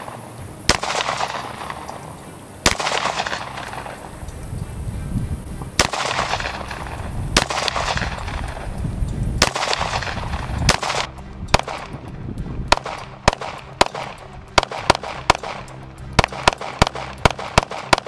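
Glock 23 pistol (.40 S&W) in a carbine stock firing: single shots a second or two apart, each with a long echoing tail, then from about eleven seconds in a faster string of shots, two or three a second.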